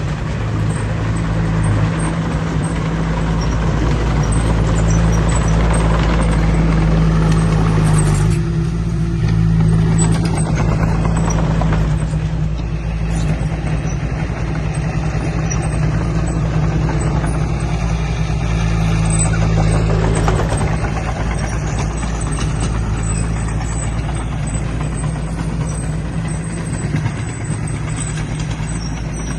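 Heavy earthmoving machine's diesel engine running with a steady low drone.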